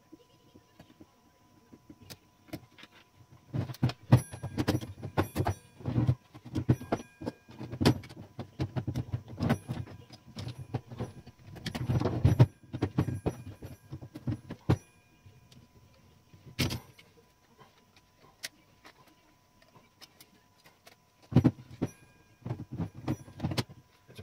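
Small metal parts of an antique typewriter clinking and rattling, with tool clicks and knocks, as it is taken apart: irregular bursts of clatter with a quieter stretch a little past the middle, broken by one sharper knock.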